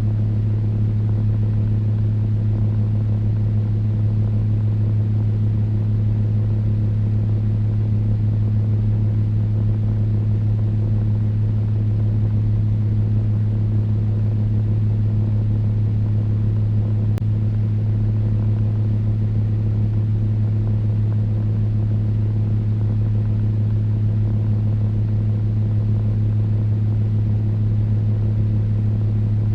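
Electric fan running steadily: a low, even hum with a few steady tones above it and a soft airy hiss.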